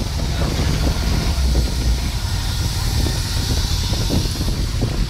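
Vehicle engine running and road noise while driving, with wind rushing over the microphone, heard from inside a moving open-sided vehicle.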